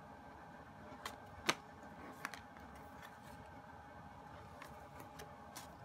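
Stiff album cards handled by hand: a scatter of short taps and clicks as they are shuffled, the loudest about one and a half seconds in, over a faint steady hum.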